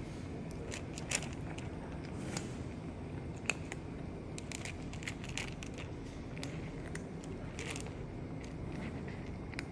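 A cat crunching dry food, with irregular sharp crunches over a steady low background rumble.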